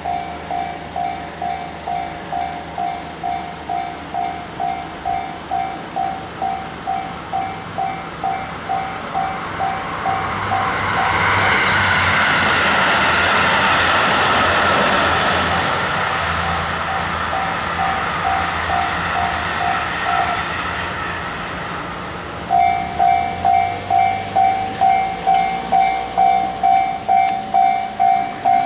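Japanese level-crossing warning bell ringing about twice a second while a train runs through the crossing, its rushing rail noise swelling about ten seconds in and fading some ten seconds later. The bell stops briefly as the train clears, then starts ringing again, louder, near the end.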